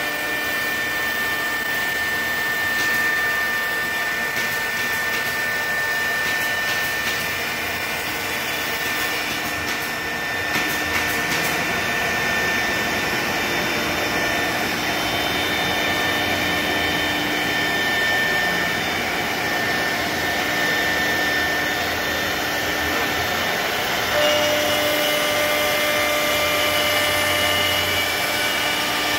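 2008 ShopSabre 4896 CNC router cutting a sheet: the 4 HP, 18,000 RPM spindle running with a steady high whine over a steady rush of air from the dust extraction. The held tones of the whine shift to new pitches near the end as the head changes its path.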